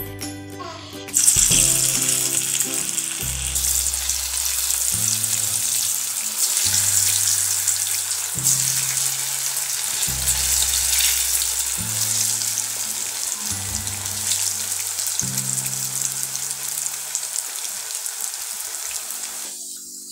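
Alu wadi slices deep-frying in hot oil in a kadhai, the oil sizzling steadily; the sizzle starts suddenly about a second in and stops just before the end. Background music with a slow bass line plays throughout.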